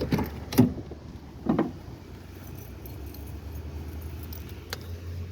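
Car keys jangling, with a few short clicks and knocks, over a low steady hum.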